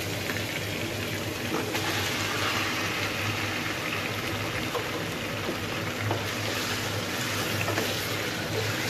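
Raw chicken pieces sizzling in hot oil in a karahi as they are stirred with a wooden spatula: a steady frying hiss that grows brighter about two seconds in.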